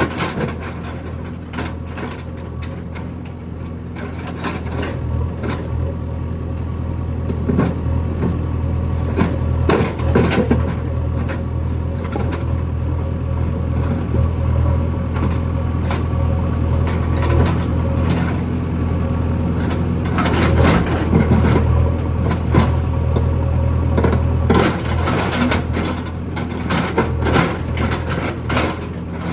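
JCB backhoe loader's diesel engine running steadily under working load, with repeated knocks and clatter from the digging.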